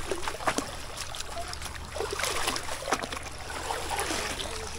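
Shallow seawater splashing and trickling at the water's edge, with small irregular splashes and clicks.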